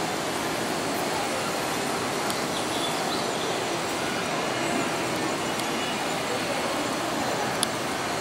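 Märklin AC HO-scale model train running along the track: a steady rolling and motor noise, with a couple of faint clicks.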